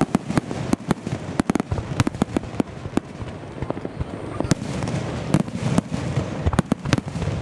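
Aerial fireworks shells bursting in quick succession: many sharp bangs and cracks at an irregular pace, several a second, over a steady rumble.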